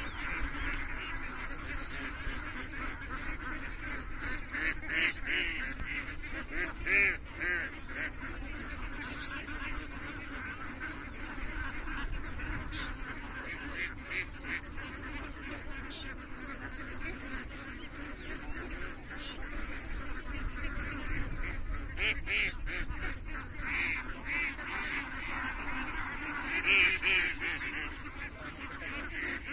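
A large flock of domestic ducks quacking together in a dense, continuous chatter, with louder clusters of calls every few seconds.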